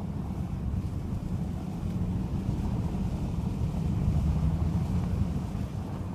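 Low, steady rumble of wind buffeting the microphone, rising and falling in gusts.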